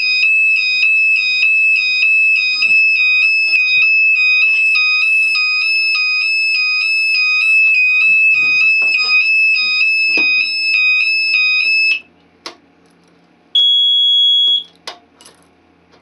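Phoenix sound bomb alarm sounder inside an ADE keyswitch burglar alarm panel, sounding a loud high-pitched pulsing tone, set off by the panel's tamper switch as the cover is opened. It cuts off suddenly about twelve seconds in when the key switch is turned to reset it, followed by key switch clicks and a short steady beep.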